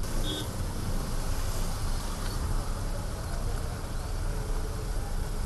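Slow city traffic on a wet road: a steady low rumble of car and motorcycle engines with the hiss of tyres on wet tarmac.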